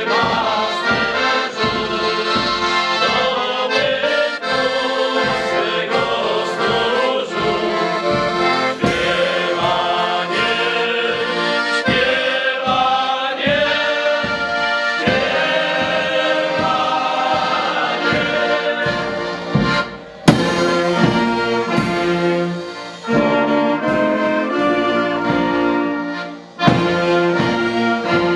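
A Polish Christmas carol (kolęda) sung by a group of men over accordion with a steady beat; about twenty seconds in, a small brass band of trumpets, saxophones, clarinet, tenor horn and bass drum with cymbal comes in and plays the tune.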